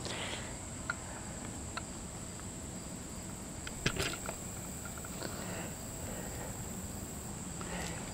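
Insects droning steadily at a high pitch, with a few light footsteps and small ticks on a dirt trail, and one sharper click about four seconds in.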